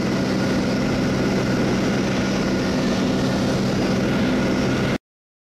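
Steady drone of an aircraft's engine heard from on board, with a constant hum of several tones over rushing noise, cutting off suddenly about five seconds in.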